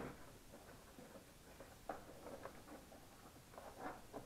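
Faint, scattered scraping and light knocks of a round paper air filter element being worked and pressed down into its housing by hand.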